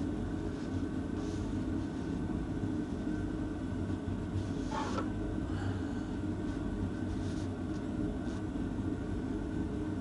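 A steady low mechanical drone, with a few faint clicks and a brief brighter rattle about five seconds in.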